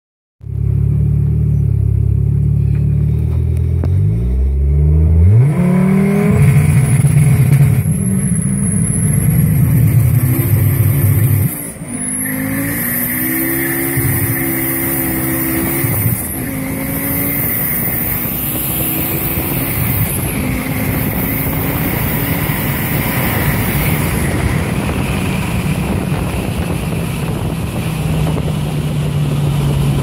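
Fiat Marea 2.0 20V Turbo's turbocharged five-cylinder engine heard from inside the cabin. It runs steadily, revs up sharply and launches, then pulls hard through the gears, its pitch climbing in each gear and dropping back at each upshift, about four times.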